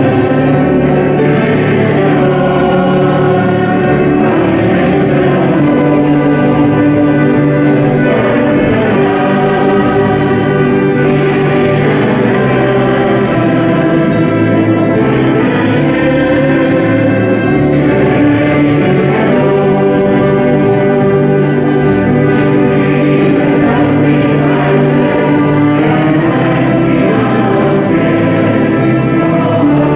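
A mixed choir of men and women sings a Danish gospel song, accompanied by a small acoustic band of guitar, banjo, accordion and fiddle.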